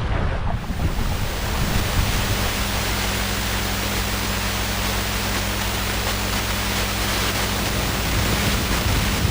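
A tinny's outboard motor running at a steady pitch underway, under a heavy, even rush of wind and water noise on the microphone.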